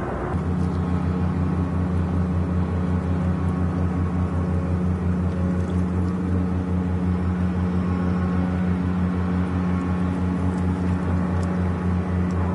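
Dredger's engine running steadily: a low, even drone with a fast regular throb, cutting in suddenly at the start.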